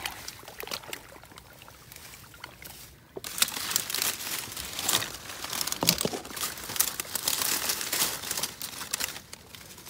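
Dry grass and brush rustling and crackling as it is pushed through and handled, light at first and much heavier from about three seconds in.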